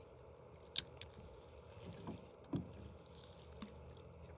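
Small waves lapping against the side of a small fishing boat, with about five short sharp clicks and knocks, the loudest about a second in.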